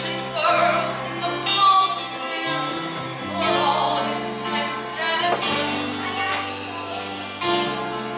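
A woman singing a musical-theatre song over an instrumental accompaniment with held bass notes.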